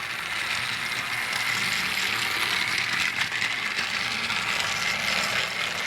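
Battery-powered TrackMaster Thomas toy engine running along plastic track: a steady high motor-and-gear whirr with a light rattle of small clicks.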